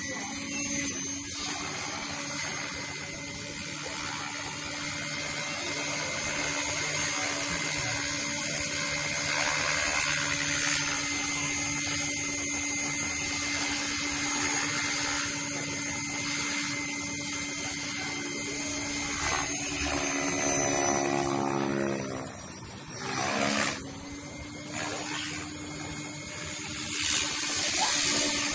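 KDS Agile 5.5 electric radio-controlled helicopter in flight: a steady whine from its motor and rotors. About three quarters of the way through, the pitch sweeps down and back up as it manoeuvres.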